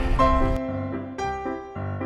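Background music with keyboard notes. About half a second in, the beat and bass drop away to a sparser passage of held notes.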